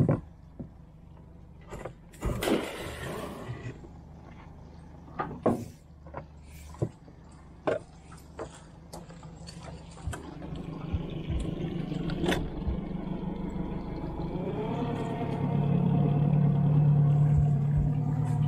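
Knocks and clatter on the boat as a crab pot is handled, with a splash as it goes into the water about two seconds in. From about halfway the boat's motor runs and picks up, rising in pitch and getting louder toward the end.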